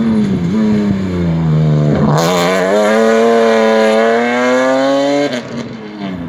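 BMW M3 E36 straight-six engine on a competition run. The engine note sags for about two seconds, then rises hard under full throttle for about three seconds, and drops sharply at a gear change or lift just after five seconds in.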